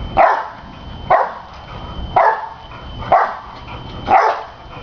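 A dog bouncing on a trampoline: a short, sharp sound with each bounce, five in all, about once a second in a steady rhythm.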